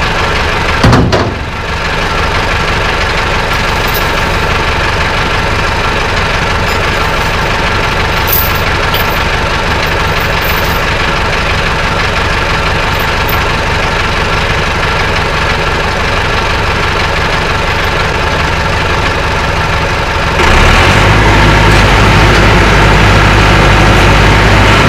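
Tractor engine running steadily, with a single loud jolt about a second in. About twenty seconds in the engine gets louder and deeper as it is throttled up for a pull.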